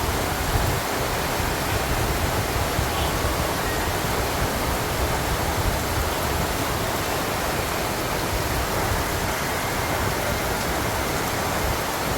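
Steady heavy rain falling, with rainwater running down steps.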